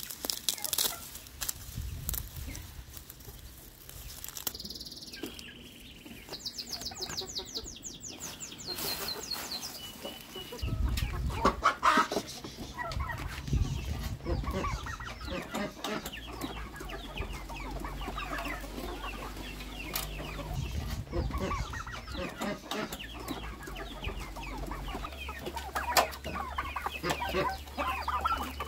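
Chickens clucking, with leaves rustling and scattered knocks and rattles.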